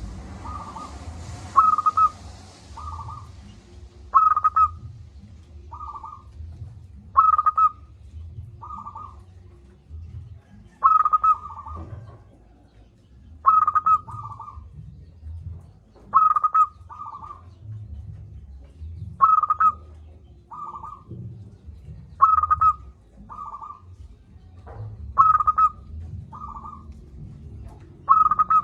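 Zebra dove (perkutut) cooing, repeating its phrase about every three seconds, each a loud note followed by a softer one.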